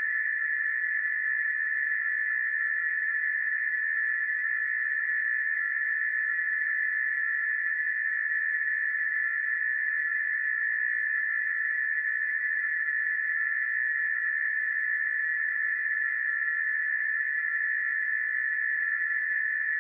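Emergency alert alarm sounding as a single steady tone, held without a break.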